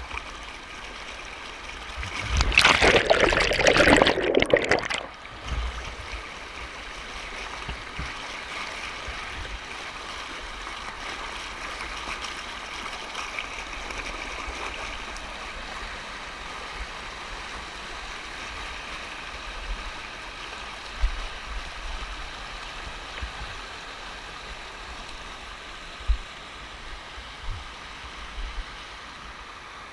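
Steady rush of water flowing over the Banfora cascades. About two and a half seconds in comes a much louder rush lasting a couple of seconds, then the steady flow goes on with a few faint knocks.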